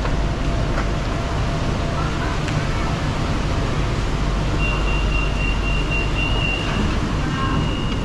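BTS Skytrain train running with a steady rumble, and a thin high whine that comes in about halfway through and holds to the end.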